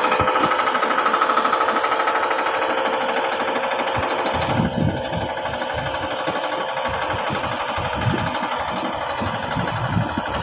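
Yamaha 15 hp outboard motor running hard with a fast, even hammering beat, pushing a boat loaded with coconuts; about four and a half seconds in its sound softens as it eases off.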